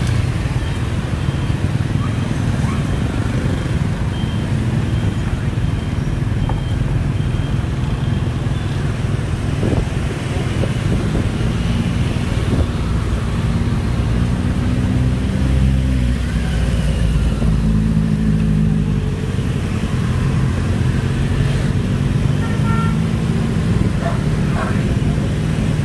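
Dense scooter and motorbike traffic with a few cars, engines running close by in a steady low hum. Through the middle, one engine note rises and falls.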